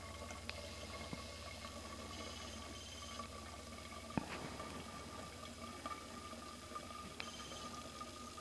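Water trickling and dripping through a t-shirt-lined cone coffee filter into a steel bottle, faint and steady. A few small taps, the sharpest about four seconds in.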